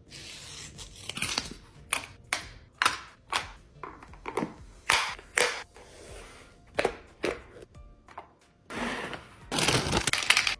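Restocking sounds of packaged snacks and plastic containers being handled: a quick run of sharp clicks and taps, then a longer crinkling rustle of packaging near the end.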